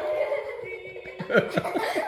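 Yodeling pickle toy playing its recorded yodel song, the voice flipping quickly up and down in pitch.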